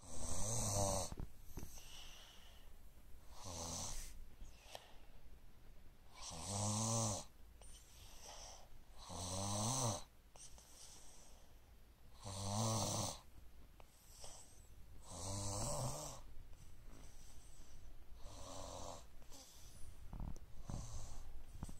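A person snoring in a slow, regular rhythm, one snore about every three seconds, some louder than others.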